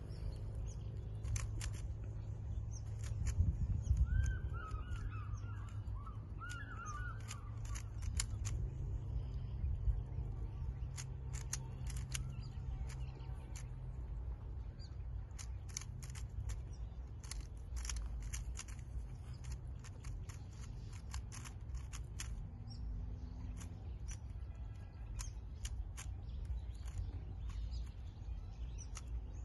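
Rubik's cube being turned by hand: quick irregular plastic clicks in runs throughout. A bird calls a few times about four to seven seconds in, over a steady low rumble.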